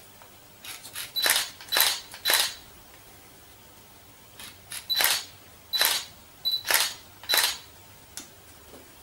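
Hairdressing scissors snipping through sections of wet hair: a run of short, crisp snips, a pause, then another run, each snip with a faint metallic ring.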